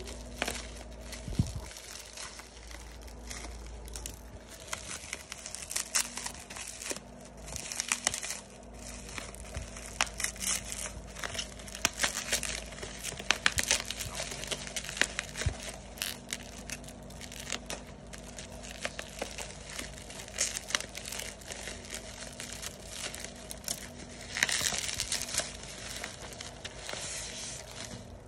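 Plastic bubble wrap crinkling and crackling as it is cut open with scissors and pulled off a phone box, with a louder, longer rustle near the end.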